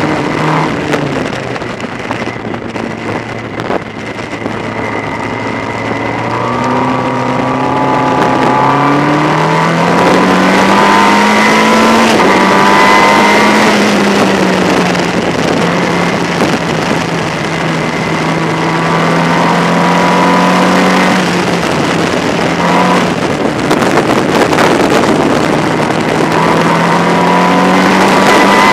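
Formula Ford race car's engine heard from the open cockpit at racing speed, its pitch climbing under acceleration and easing back as the driver lifts, with a long rise about a third of the way in and another near the end.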